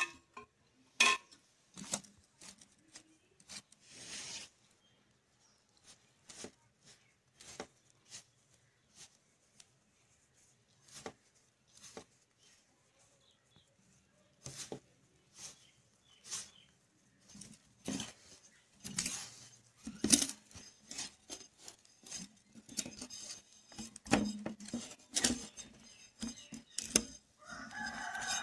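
Hands mixing flour and oil into a crumbly dough in a stainless steel bowl: scattered rubbing and scraping with light clicks against the metal, growing busier about two-thirds of the way through.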